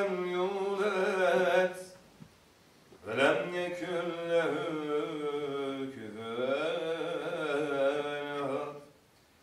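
A solo male voice chanting unaccompanied in the Mevlevi Sema ceremony. It sings two long, wavering phrases, with a short pause about two seconds in.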